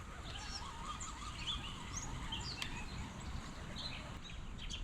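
Small birds chirping in short, scattered calls over faint outdoor ambience, with a single light click about two and a half seconds in.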